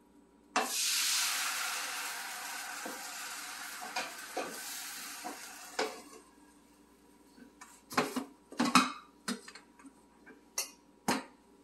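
Hot oiled pan on the stove sizzling: the hiss starts suddenly and dies away over about five seconds. Near the end come a few light clinks and knocks of metal bowls and utensils.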